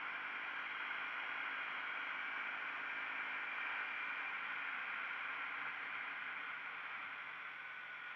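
KTM Duke 125's single-cylinder engine running as the motorcycle rides along, under a steady rush of wind and road noise at the outside-mounted camera. The sound eases off a little near the end.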